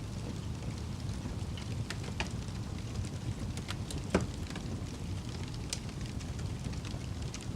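Fire crackling: scattered sharp pops over a steady low rumble, with one louder pop a little past halfway.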